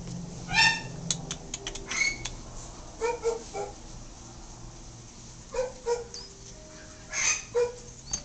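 Yellow-naped amazon parrot giving short squawks and chattering calls, several separate calls with the loudest near the end. Light clicks of its beak against the cage bars and toys come in the first second or so.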